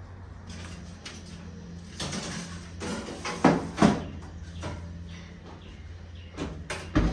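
Oven door and baking tray being handled, with a few short clatters and a sharp knock near the end, over a steady low hum.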